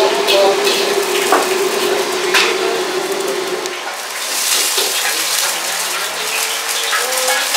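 Steady kitchen hum with scattered clatter, then, after a change about four seconds in, tilapia deep-frying in a wok of hot oil: the oil bubbling and sizzling, with the clink of a metal ladle and strainer against the wok near the end.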